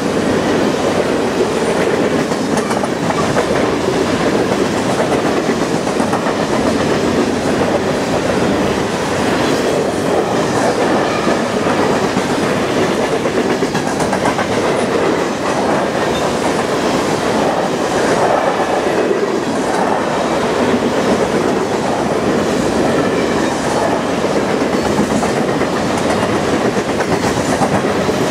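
Covered grain hopper cars of a freight train rolling steadily past: a continuous rumble of steel wheels on the rails, with repeated wheel clicks.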